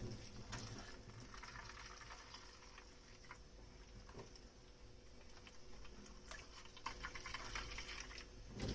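Faint dishwashing at a kitchen sink: scattered small clinks and taps of dishes over light water noise, with a louder knock or splash near the end.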